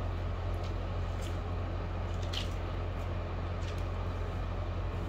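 A steady low hum with background hiss, and a few faint short crackles and rustles as hands wrap pieces of steamed chicken in fresh leaves.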